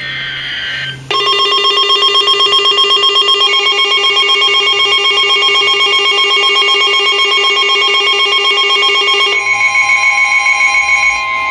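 Emergency Alert System attention signal for a severe thunderstorm warning: a loud, harsh electronic alert tone that pulses rapidly. It starts about a second in, after a brief higher-pitched burst, and changes to a different, steadier tone with a clear pitch near the end.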